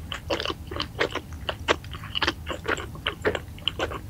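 Close-miked chewing of crispy fried food with the mouth closed: a rapid run of sharp crunches, about four a second.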